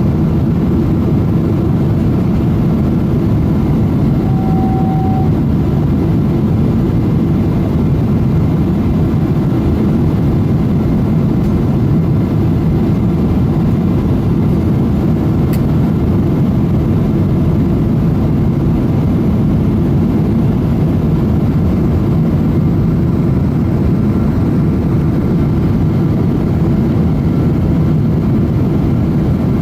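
Steady cabin noise of a Boeing 777-200 in flight on approach: a continuous low rumble of jet engines and airflow. A faint short tone sounds about four seconds in.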